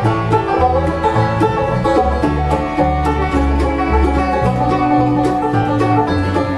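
Bluegrass band playing the instrumental intro of a song: banjo prominent over guitar, mandolin and fiddle, with an upright double bass walking from note to note underneath. A long note is held for about a second and a half in the middle.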